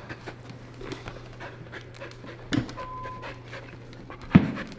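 Dog panting with quick, short breaths, with a knock on the floor about two and a half seconds in and a louder knock shortly before the end.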